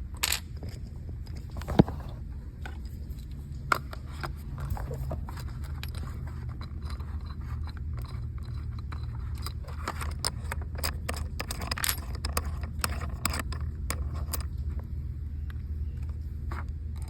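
Small phone-mount parts being handled and taken apart by hand: scraping and scattered clicks, with a sharp click about two seconds in, over a steady low hum.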